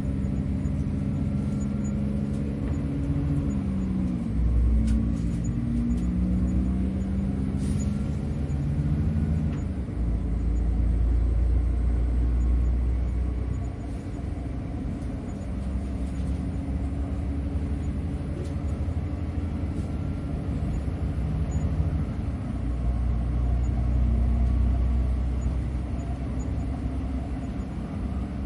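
Low, steady rumble of a moving train heard from inside a carriage, swelling and easing. For roughly the first third a low droning tone wavers and shifts in pitch over the rumble.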